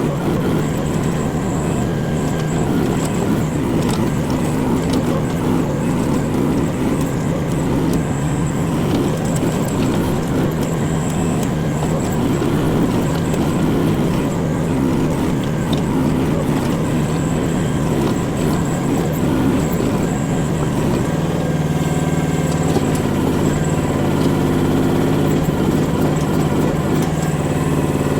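Micro excavator's engine running steadily while it works to dig out a small tree stump. About 21 seconds in, its note changes and settles into a steadier, even hum.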